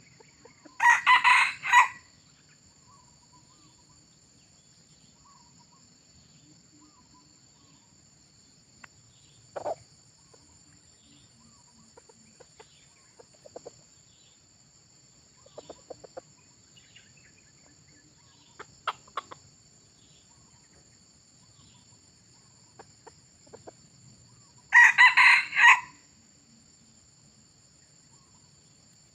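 Red junglefowl rooster giving two short crows, one about a second in and another near the end, each a quick run of four notes. High steady insect trilling runs underneath, with a few faint ticks and rustles in between.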